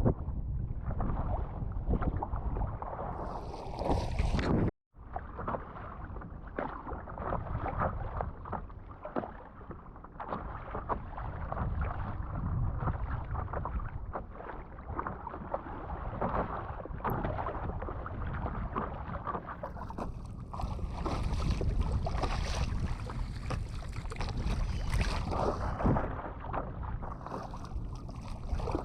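Strong wind buffeting the action-camera microphone, mixed with water splashing and slapping around a stand-up paddle board. The sound cuts out for an instant about five seconds in.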